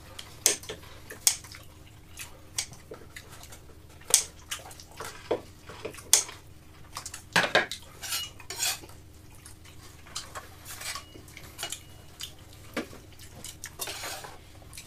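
Metal serving utensils clinking and scraping against plates as slices of pizza are served, with scattered, irregular clinks and taps.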